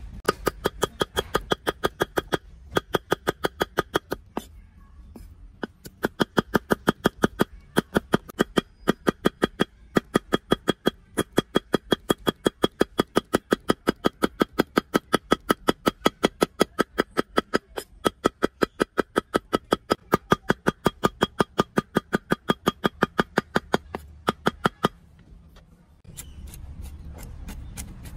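Knife chopping aloe vera leaf on a thick round wooden chopping block: rapid, regular chops about five a second, each a sharp knock with a short ring, broken by a few brief pauses. The chopping stops about three seconds before the end.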